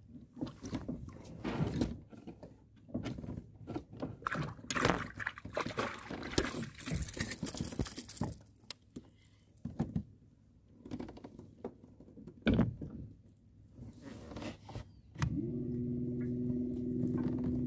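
Irregular knocks, clicks and rustling from a kayak angler fighting and reeling in a fish on a baitcasting rod. About fifteen seconds in, a steady drone of background music begins.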